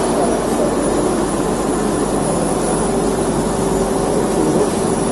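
Vega Altair folder gluer running: a steady, even mechanical noise from its belts and drives, with a thin high whine above it.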